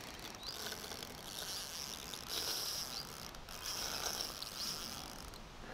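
Insects chirring steadily in a high, thin band over quiet outdoor background noise, stronger in the middle and fading near the end.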